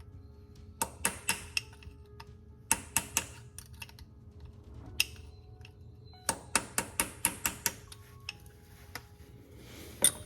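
Hammer tapping a punch against a broken bolt to work it loose, in quick runs of sharp metallic taps: about four taps near the first second, four more near the third, a single tap around the fifth, a longer run of about eight near the seventh, and one last tap near the end.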